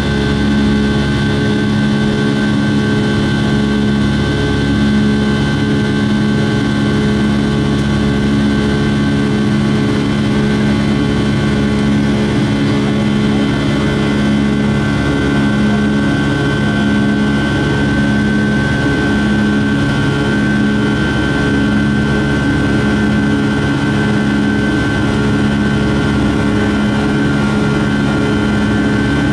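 Rolls-Royce RB211 turbofan of a Boeing 757-200 heard from inside the cabin beside the wing: a steady, even drone with a low rumble and several constant humming tones, one of them higher-pitched, as the jet climbs.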